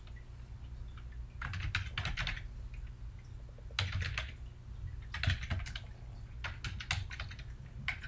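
Keystrokes on a computer keyboard, typed in several quick runs with short pauses between them, over a faint steady low hum.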